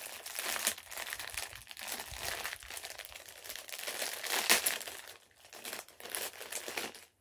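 Crinkly gold metallic wrapper being crumpled and torn open by hand: a continuous crackling rustle, loudest about four and a half seconds in and dying away near the end.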